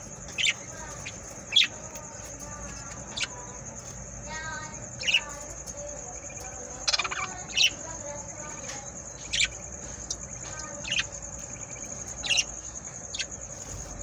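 Budgerigars in a nest box giving short, sharp chirps about once a second, irregularly spaced. Fainter wavering calls come in twice between them, over a steady high-pitched whine.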